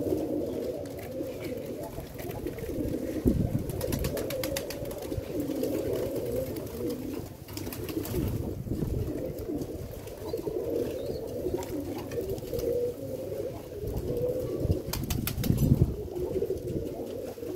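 Several pigeons cooing continuously, their low warbling coos overlapping, with a few brief sharp clicks about four, eight and fifteen seconds in.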